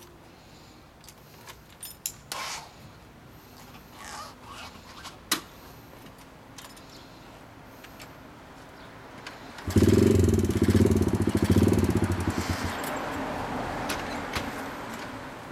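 A Honda Monkey-type mini bike's small single-cylinder four-stroke engine catching about ten seconds in after a few scattered clicks and knocks, running loud and uneven for a few seconds, then settling to a steadier, quieter idle.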